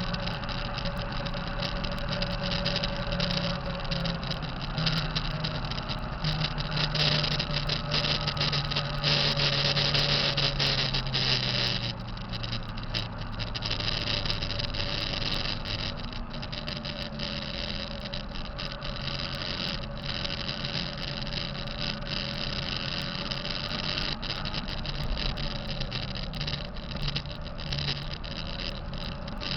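Diesel engine of a 2005 Kenworth T660 truck running, its turbo making a bad sound that the owner wants diagnosed. The engine speeds up and gets louder about six seconds in, holds, then drops back sharply about twelve seconds in.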